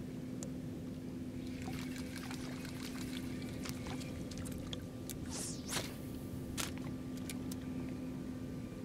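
Water splashing and spinning-reel retrieve noise as a DOA Airhead soft-plastic lure is buzzed fast across the water's surface, with a louder splash about five and a half seconds in. A steady low hum runs underneath.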